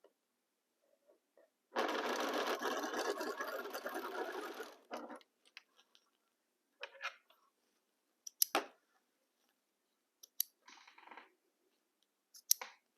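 Sewing machine running for about three seconds as it stitches a seam through fabric. This is followed by a few short sounds, including two sharp clicks several seconds apart.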